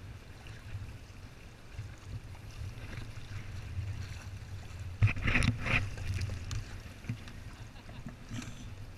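Sea kayak paddles dipping and splashing in the water over a steady low rumble of water against the hull. A louder flurry of splashes comes about five seconds in.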